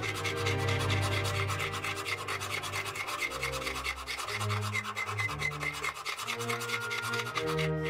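Hand-sanding a steel knife blade with an abrasive stick, rubbing in quick, even back-and-forth strokes, over background music.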